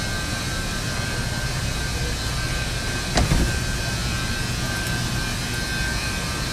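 Steady big-store room noise: a low ventilation and refrigeration hum with a few faint steady high whines. A brief thump about three seconds in.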